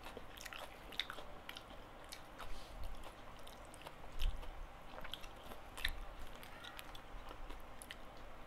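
Close-up chewing and mouth sounds of a person eating gado-gado, with scattered small clicks and a few louder brief knocks from a spoon scooping the food on its paper wrapping.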